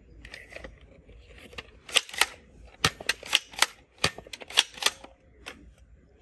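Red plastic foam-dart toy blaster being handled and worked, its parts giving about a dozen sharp plastic clicks and clacks between about two and five seconds in.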